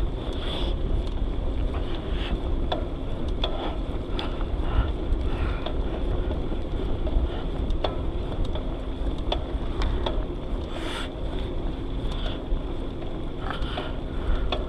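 Wind buffeting an action camera's microphone on a moving bicycle, a steady low rumble with the ride's noise under it and scattered small clicks and rattles from the bike.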